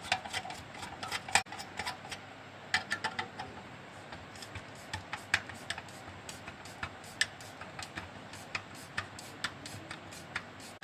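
Screwdriver working the screws out of an electric iron's handle: irregular small clicks and scrapes of the tool in the screw heads, a few a second.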